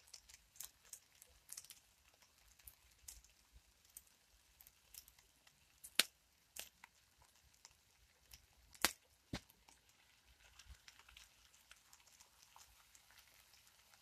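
Small wood campfire crackling under a frying pan, with scattered sharp pops, two of them loud about three seconds apart, over a faint sizzle of frying meat, potatoes and onion that grows a little near the end.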